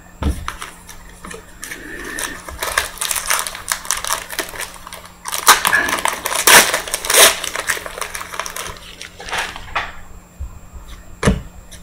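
Plastic-foil trading card pack wrapper crinkling and being torn open, loudest in the middle, then a couple of sharp taps from the cards being handled near the end.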